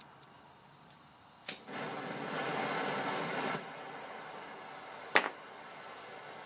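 Gas torch clicked alight about a second and a half in, hissing strongly for about two seconds, then settling to a quieter steady hiss as it heats a cable lug for soldering. A sharp click near the end.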